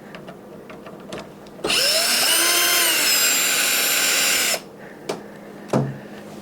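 Cordless drill/driver spinning up and running for about three seconds while backing out a door-handle screw, then stopping abruptly; a couple of light clicks follow.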